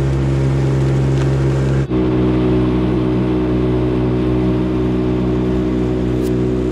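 An engine running steadily at a constant speed, with a sudden shift in its sound about two seconds in.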